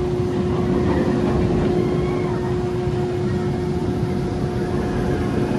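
A B&M sit-down roller coaster's lift hill chain drive running: a steady hum over a low mechanical rumble.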